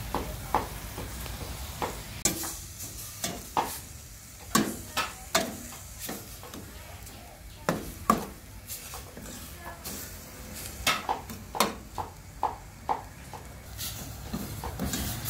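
Metal ladle stirring and scraping spice paste frying in oil in a stainless steel pot: irregular clinks and scrapes of the ladle on the pot over a light sizzle.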